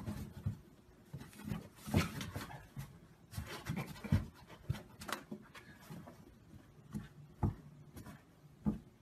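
A cat's paws batting and scratching at cardboard, giving irregular taps, thuds and scraping.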